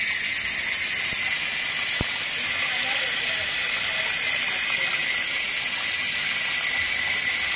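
Water pouring from a hose or pipe over a large fish and splashing into a metal pot, a steady hiss.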